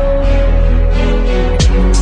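Background music: held sustained notes, with a deep drum beat and a sharp cymbal-like hit coming in about one and a half seconds in.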